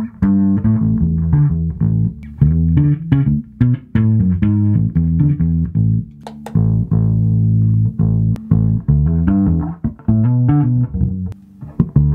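Electric bass played through a drive pedal (fuzz, distortion or overdrive) into an Aguilar amp head and Barefaced cabinets: a riff of short plucked notes, with one long held note in the middle.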